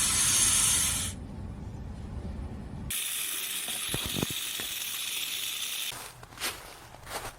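Snake hissing: two long hisses, each starting and stopping abruptly, followed near the end by a few sharp clicks.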